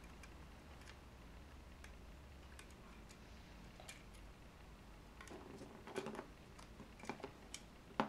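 Faint, scattered small clicks and taps of an iPhone 4S's screen assembly being worked loose from its metal frame by hand and its cables freed, with a sharper tap right at the end as a part is set down on the table.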